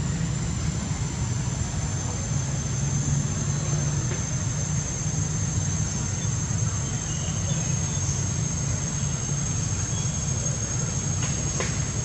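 Steady low rumble with a continuous high-pitched insect drone above it; no monkey calls.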